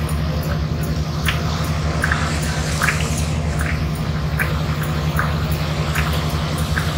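Steady low drone of the Karnafuli Express ship's engines, with short high chirps coming about every half second to a second.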